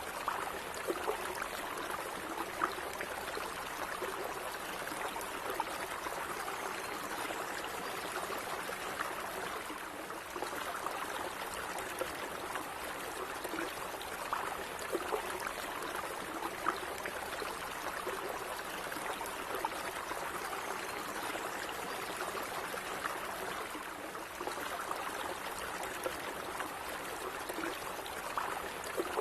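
A stream of water running and gurgling steadily, with many small splashes and trickles.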